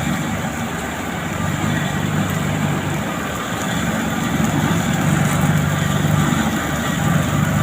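Heavy diesel engine of asphalt-paving machinery running steadily, getting somewhat louder from about halfway through.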